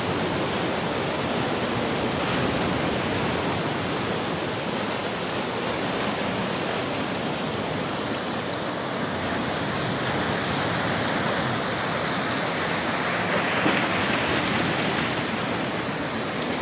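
Sea surf breaking and washing around in shallow water: a steady rush of waves, a little louder for a moment near the end.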